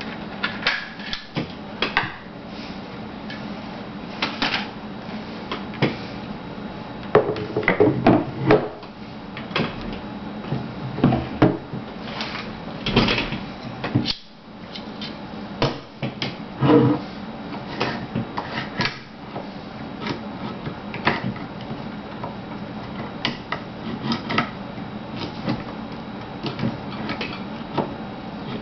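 Irregular metal clicks, knocks and clunks of a Vz. 52/57 rifle's parts being handled while it is field stripped, over a steady low hum.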